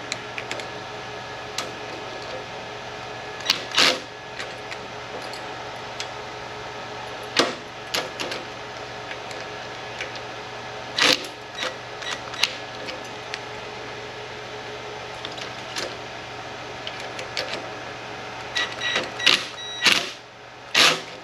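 Scattered sharp clicks and clacks of pliers working a locking nut on a metal bracket, a few at a time with gaps between, over a steady hum.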